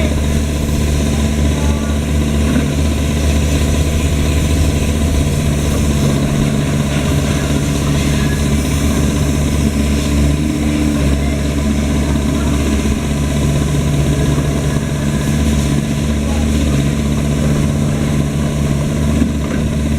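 Kubota KX-021 mini excavator's diesel engine running steadily, at about idle speed.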